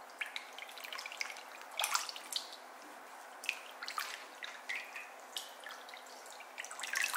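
Pork being washed by hand in water, with scattered light splashes and drips.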